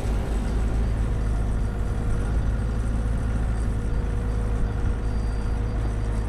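Construction machinery's diesel engine running steadily at a constant speed, with no pile-driving blows.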